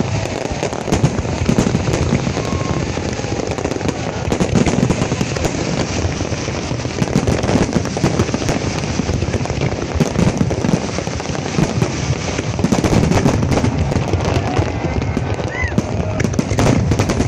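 Fireworks going off in a continuous, rapid crackle of pops.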